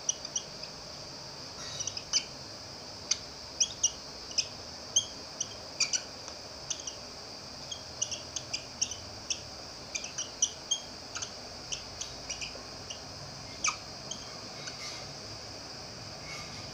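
Dry-erase marker squeaking on a whiteboard during writing: many short, high squeaks in quick, irregular succession, one for each pen stroke.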